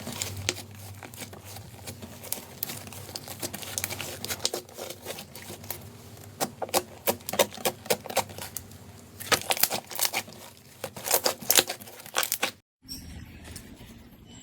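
Slime being squished and worked by hand, giving dense runs of sharp crackling pops and clicks that come in clusters. The sound cuts out briefly near the end and comes back quieter.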